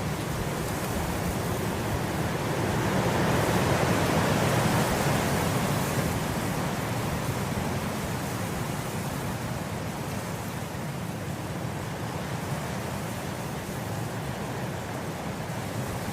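Wind blowing through grass, a steady rustling hiss that swells a few seconds in and then eases off.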